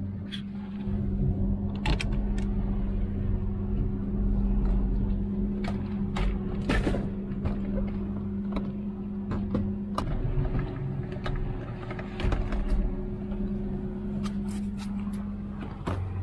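Motorboat engine running at a steady pitch under a heavy low rumble, with a scatter of sharp clicks and knocks from a plastic tackle box being handled.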